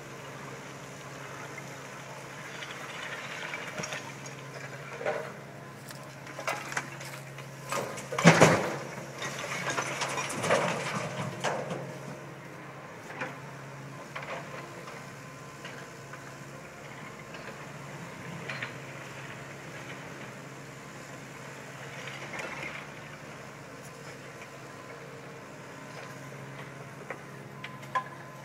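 Demolition machinery: an engine running steadily under irregular crashes and crunches of breaking building material. The loudest crash comes about eight seconds in, with a cluster of smaller ones around ten to eleven seconds, and scattered knocks later.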